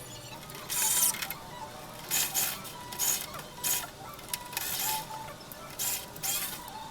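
Background music with a series of short, loud scraping or rustling noises, about seven of them, coming irregularly every half second to a second.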